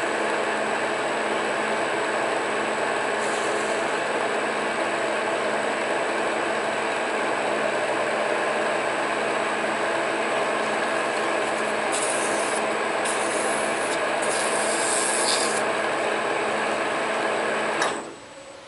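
Monarch metal lathe running steadily with a hum, with several short scratchy hisses of work against the spinning part in the second half. It shuts off abruptly near the end, leaving a faint hum.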